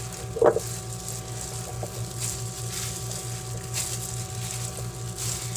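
Disposable plastic glove rustling and crinkling as a hand kneads a crumbly powdered-milk and condensed-milk mixture in a glass bowl, with soft irregular rustles. A steady low hum runs underneath, and there is one short louder sound about half a second in.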